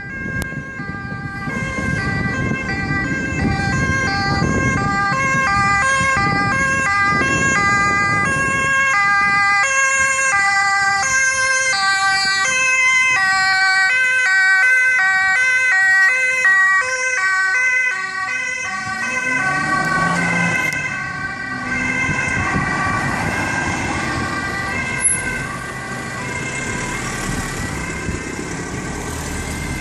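Dutch ambulance two-tone siren in 'versneller' mode, switching rapidly between a high and a low tone. It is loudest as the Mercedes-Benz Sprinter ambulance passes about halfway through, then recedes as it drives away.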